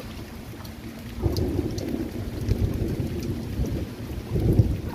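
A low rumble of thunder sets in suddenly about a second in and swells again near the end, over rain.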